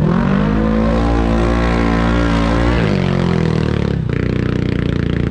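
ATV engine revving up and holding at high revs for about three seconds, then dropping back; just after four seconds it changes abruptly to a lower, steady pulsing run.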